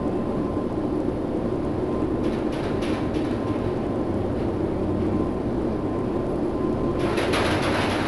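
Steady rumble of wind and sea on a container ship in heavy storm seas, with a faint steady hum underneath. About seven seconds in a hissing wash rises as the bow digs into a wave and sends spray flying.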